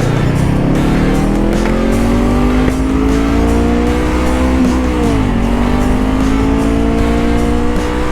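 Honda CBR500R's parallel-twin engine pulling under throttle, its pitch rising steadily for about four seconds. About five seconds in the pitch falls sharply, then it climbs again more slowly.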